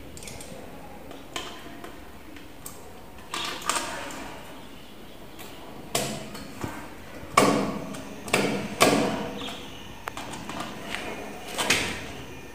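Scattered knocks and clicks of a screwdriver and a plastic wall-socket plate being handled while the socket is fitted to its wall box. There are about eight sharp clacks, the loudest a bit past the middle.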